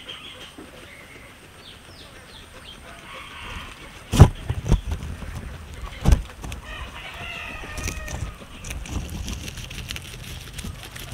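Guinea pig biting and chewing fresh grass close up: a few sharp crunches, the loudest a little after four seconds and again about six seconds in, then quicker chewing clicks. Short chirping animal calls sound faintly behind it, with a cluster about seven seconds in.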